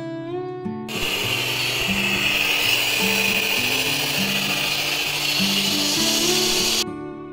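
Sampo EM-50JB220 television putting out a loud, even static hiss like white noise, which starts about a second in and cuts off suddenly near the end. Steady acoustic guitar music plays underneath.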